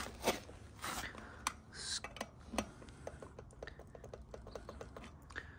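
Metal clicks and knocks of a spoke torque wrench being set on a motorcycle wheel's spoke nipple and turned, then a run of small even ticks, about five a second, as the wrench is worked. The spoke it is tightening takes only a little turn before reaching torque.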